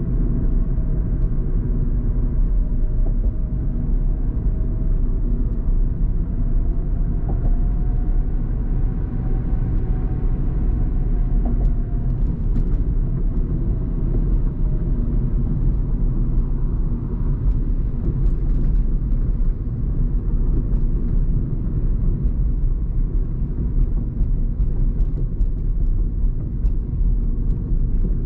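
Steady road and engine noise of a moving car heard from inside its cabin: a low rumble of tyres on the road, with a faint whine that drifts slightly in pitch during the first half.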